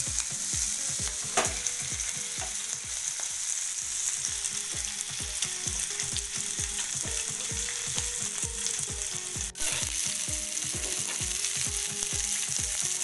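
Whole masala-coated fish shallow-frying in hot oil in a pan: a steady sizzle and spatter, with a low regular beat of about three strokes a second underneath and a single sharp click about a second and a half in.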